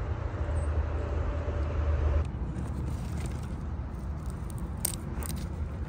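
Steady low background rumble, which drops abruptly after about two seconds, with a few faint clicks near the end.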